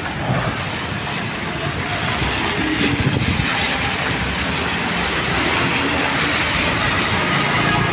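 Steady noise of typhoon rain and traffic on a wet city road, with tyres hissing on the wet surface and a low rumble beneath.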